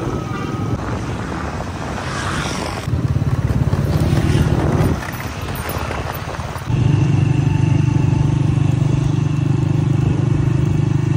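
Honda motorcycle engine running at road speed, with rushing wind and road noise. The low engine hum jumps louder about three seconds in, drops back about two seconds later, and comes up loud again near seven seconds.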